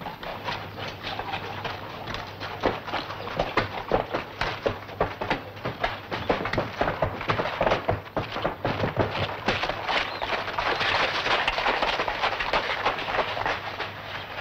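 Hoofbeats of several ridden horses on a dirt track: a dense, uneven run of hoof strikes throughout.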